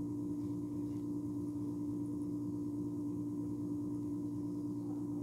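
A steady low hum on one constant pitch, with fainter lower tones beneath it, unchanging throughout.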